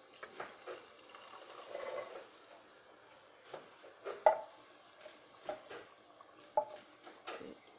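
Canned green pigeon peas with coconut milk pouring out of the can into a pot of liquid, a soft wet splashing for about two seconds. This is followed by about five short, sharp clinks.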